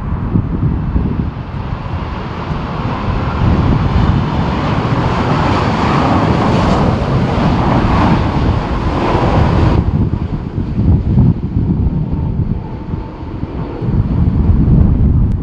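Jet airliner engines passing close by on approach, with strong gusty wind buffeting the microphone as a constant low rumble. The jet noise builds, then cuts off abruptly about ten seconds in, leaving only the wind rumble.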